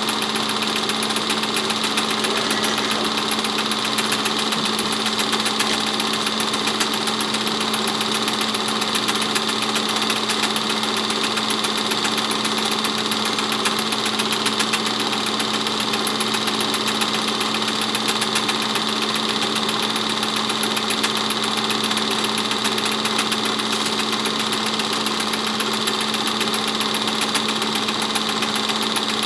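8mm film projector running: a steady motor hum with a fast, even clatter of the film being pulled through the gate.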